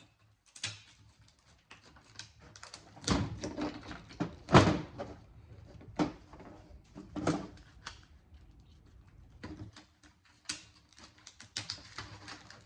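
Irregular knocks and clatters of metal parts and hand tools being handled as a cable box is stripped for scrap, about ten in all, some with a short ring, the loudest about four and a half seconds in.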